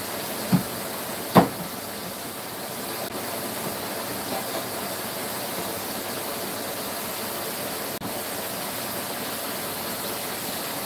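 Chicken back frying in hot oil: a steady sizzle. Two short knocks come about half a second and a second and a half in.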